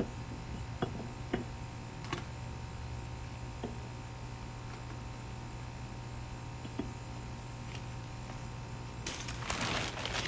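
A few faint light clicks and knocks of parts being handled over a steady low hum, then a burst of rustling, crinkling handling noise near the end.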